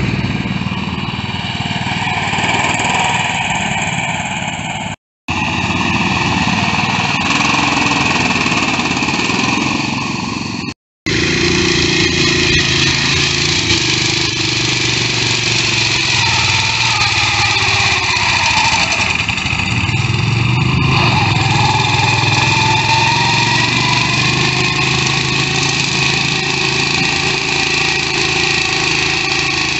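Small garden tractor engines running hard as the tractors churn through deep mud, the engine pitch rising and falling with the throttle.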